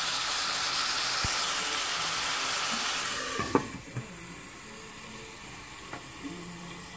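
Beef pieces sizzling in oil in a stainless steel pot. About three and a half seconds in, the steel lid is set on with a brief clink, and the sizzling carries on quieter and muffled under the lid.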